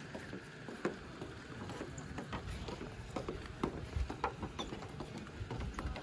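Footsteps on wooden boardwalk planks: irregular knocks about two a second over a steady background hiss.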